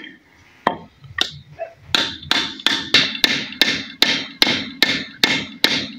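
Sharp, evenly spaced knocks, about three a second, as a ball bearing is driven onto the shaft of a washing machine motor's rotor against a wooden block; a few slower knocks come first.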